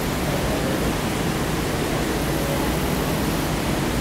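Steady rushing hiss, even throughout, with no distinct events.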